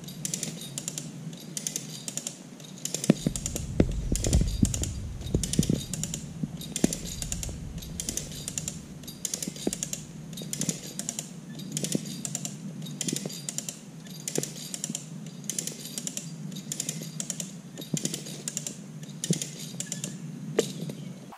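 Maasdam rope puller ratcheting rhythmically, about two clicks a second, as its handle is pumped to drag a tree stump out by its roots. Scattered low knocks and creaks are heard throughout, with a low rumble between about three and six seconds in.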